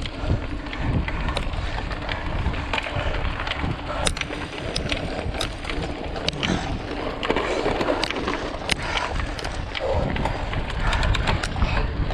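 Mountain bike ridden fast over a rough trail: many quick rattles and clicks from the bike over bumps, tyre noise, and wind buffeting the microphone.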